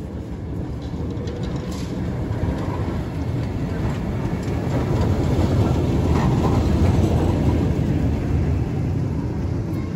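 Vintage electric tram rolling past close by, its wheels rumbling on the rails. The rumble grows louder to a peak about six to seven seconds in, then eases off a little.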